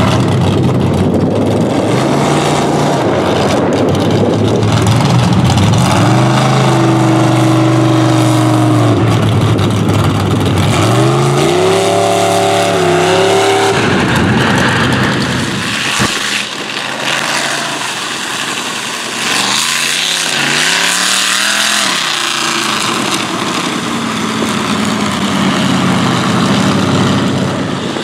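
Mega mud truck engine revving hard through a mud pit, the pitch climbing and falling again and again as the throttle is worked. The sound changes abruptly a little past halfway, with more rising and falling revs after it.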